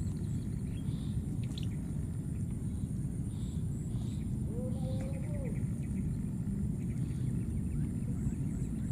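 A steady low rumble of outdoor noise runs throughout. About five seconds in comes one short coo that rises and then falls, the call of a baby macaque, and faint high bird chirps come and go.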